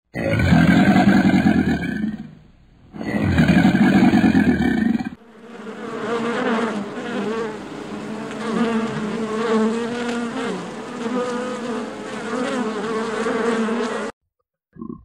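Two loud, drawn-out animal calls of about two seconds each. Then a steady, wavering buzz of flying insects lasts about nine seconds and cuts off abruptly.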